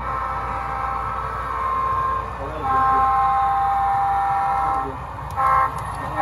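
HO-scale Santa Fe diesel locomotive's sound decoder sounding a multi-chime horn in the grade-crossing pattern. There are two long blasts, the second louder, then a short blast, and a final long blast starting right at the end.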